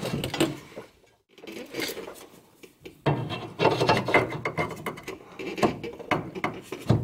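Scraping and rubbing of a Whiteline polyurethane control arm bushing being forced onto a Subaru's front control arm shaft while a pry bar levers the transmission crossmember aside for clearance. The scraping comes in irregular bouts with brief pauses about a second in and near three seconds, then runs busier through the second half.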